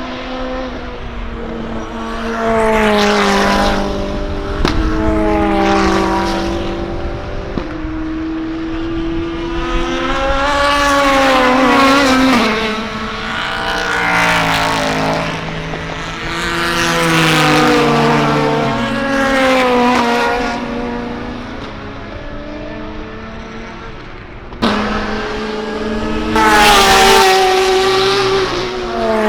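Race car engines passing at speed one after another, their notes rising and falling as each goes by. There is a sudden jump in loudness near the end.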